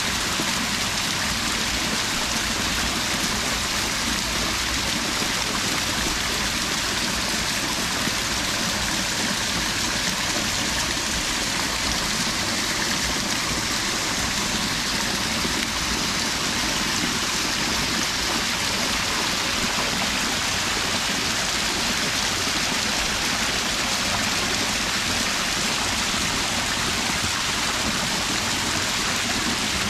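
Running water rushing steadily, without a break.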